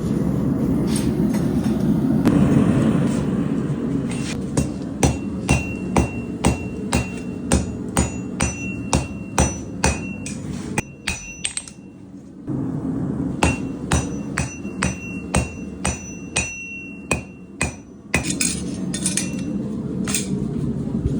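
Hand hammer striking hot high-carbon damascus steel on an anvil, about two blows a second, each followed by a ringing tone, with a short pause partway through. A steady low rushing noise runs underneath and is heard alone before the hammering starts and after it stops.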